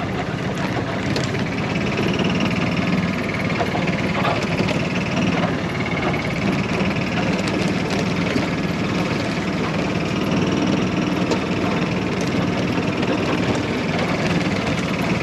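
Golf cart's small engine running steadily as it drives across a field.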